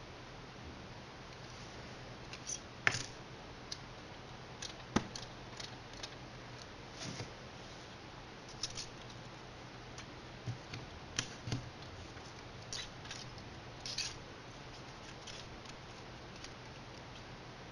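Scattered light clicks and taps, about fifteen at irregular intervals, over a faint steady hum.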